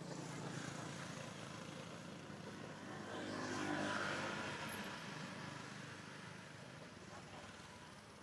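A motor vehicle passing by: a low engine hum with road noise that swells to a peak about four seconds in and then fades away.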